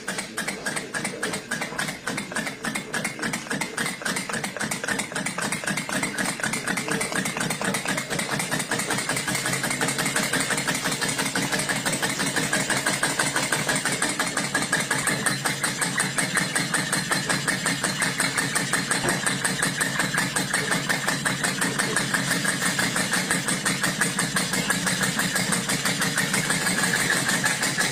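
A steam engine running with a fast, even beat of several strokes a second, growing louder over the first half and then holding steady.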